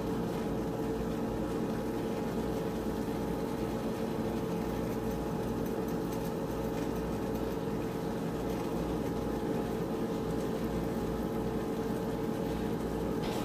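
Steady machine hum with one constant mid-pitched tone, holding level throughout, with no distinct knocks or clicks.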